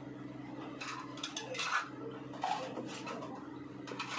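Light clinks and clatter of tableware being handled, in several short knocks, over a steady low electrical hum.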